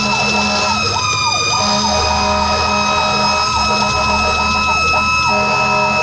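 Fire engine's siren sounding while the truck drives: a pitched call that keeps dipping and rising quickly in pitch, over a steady high tone and the low rumble of the truck's engine.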